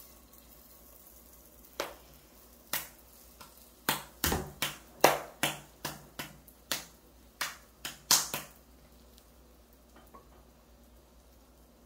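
A run of about a dozen sharp clicks and taps, irregularly spaced, over several seconds during the frying of hotteok.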